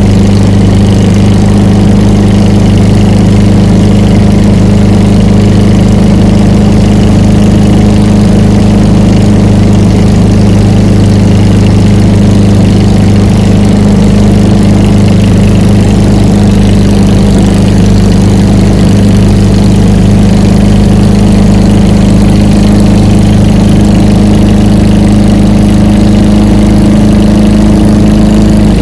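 Quad City Challenger II ultralight's engine and propeller running at a steady speed: a loud, even drone with no change in pitch.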